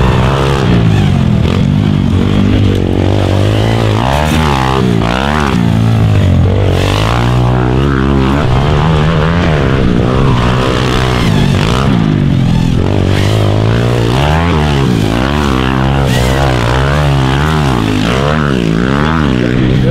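Pit bike engine revved hard and eased off over and over as it is ridden around a dirt track, its pitch climbing and dropping every second or so.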